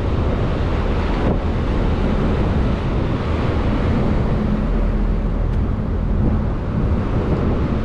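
Steady low rumble of a fishing boat's engine running, with wind buffeting the microphone.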